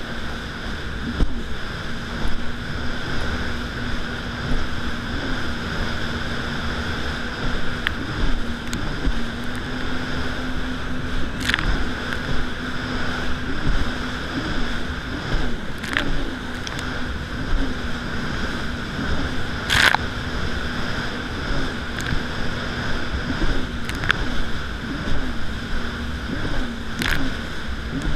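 Yamaha VX110 jet ski's four-stroke engine running at a steady cruising pitch with small rises and dips, over rushing water and spray. Several sharp knocks come a few seconds apart.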